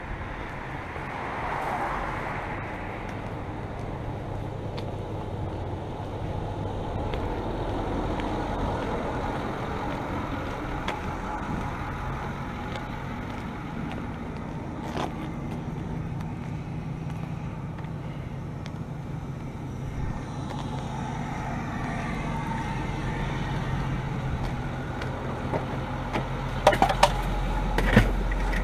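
Ford F450 truck idling steadily, a low even hum. A few sharp clicks and knocks come near the end.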